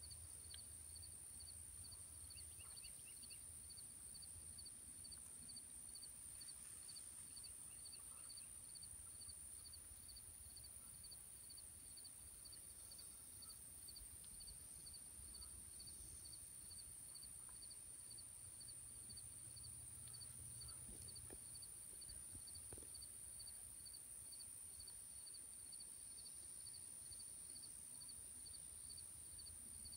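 Near silence outdoors: a faint steady high insect drone with a thin chirp repeating a couple of times a second, over low wind rumble.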